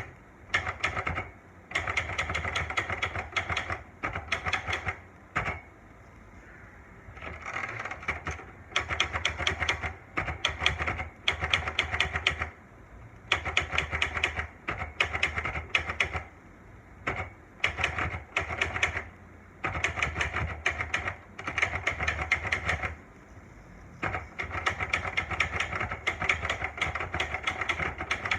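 Olivetti Lettera portable typewriter being typed on: the keys strike in quick runs of several seconds, broken by short pauses of about a second between runs.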